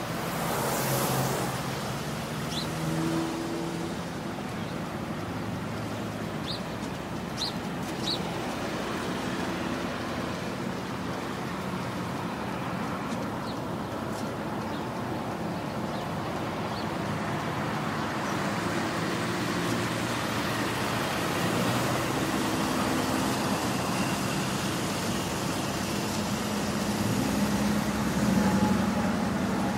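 Road traffic: motor vehicles running and passing in a steady wash of street noise, with a few brief high clicks or pings.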